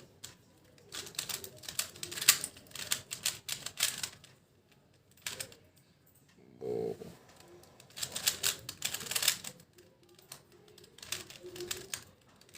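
Plastic twisty puzzle being speed-solved: rapid runs of clicking as the layers are turned fast, broken by a pause of a few seconds near the middle and a brief murmur in the pause.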